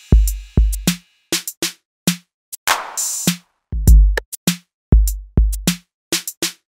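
Outro music: a sparse electronic drum-machine beat of deep kick drums, short clicky hits and a long noisy snare-like hit, with silent gaps between the hits.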